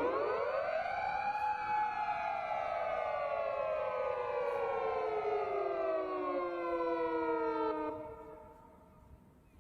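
Japanese police car sirens sounding together in one long wail: the pitch rises quickly, then slides slowly down over about seven seconds and fades out near the end.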